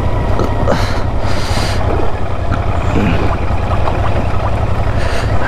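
Royal Enfield Continental GT 650's parallel-twin engine running with a steady low rumble as it labours over a broken, slushy road, a surface the rider says the GT struggles on. Wind noise on the microphone, with a brief hissy swell about a second in.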